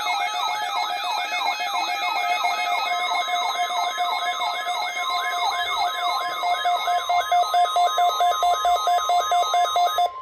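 Several weather radio receivers sounding their alert alarms at once, set off by the weekly NOAA Weather Radio test: a fast siren of falling whoops, about two to three a second, layered over steady and pulsing beep tones. They all cut off together near the end.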